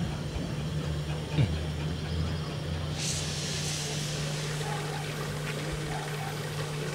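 A narrow-gauge steam locomotive lets out a burst of steam hiss about three seconds in, lasting a second or so, over a steady low hum.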